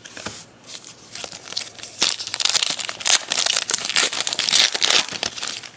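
A trading-card pack wrapper being torn open and crinkled by hand, faint at first, then loud dense crackling from about two seconds in until near the end.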